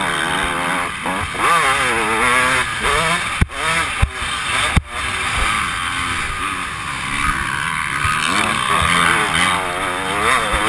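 Motocross dirt bike engine revving up and down again and again, heard from a helmet-mounted camera. Three sharp knocks come in quick succession a little before the middle.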